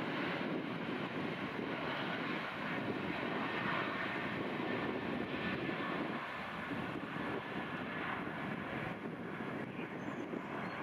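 Boeing 737-800's twin CFM56-7B turbofan engines at takeoff thrust: a steady wide jet rumble as the airliner rolls, lifts off and climbs away, easing slightly near the end.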